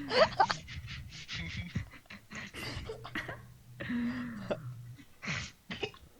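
A person coughing hard in repeated rough fits, choking on a mouthful of water that went down the wrong way.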